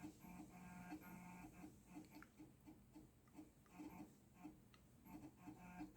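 Macintosh Plus floppy drive reading a disk. A faint whirring motor tone comes and goes, with soft ticking about three times a second.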